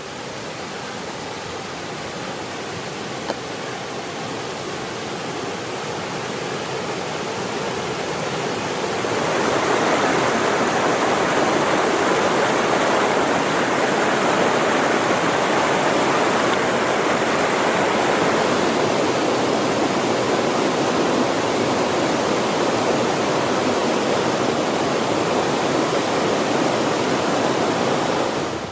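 Mountain stream rushing over rocks, a steady sound that grows louder and becomes fuller about nine seconds in, then holds.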